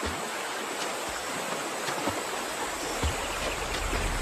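Shallow river water running over rocks, a steady rushing, with a low rumble building near the end.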